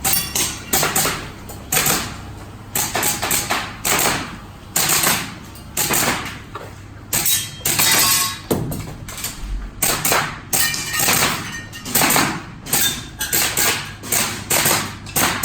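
Airsoft pistol fired over and over, sharp pops coming singly and in quick strings of two or three at irregular intervals, with some sharper knocks among them.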